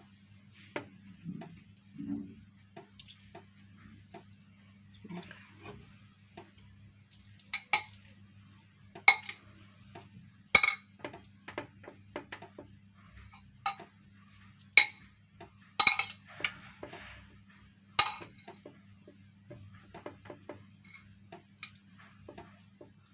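A metal spoon clinking against a glass bowl and baking dish as boiled fusilli pasta is scooped out and spread, in irregular sharp clinks, a handful of them louder.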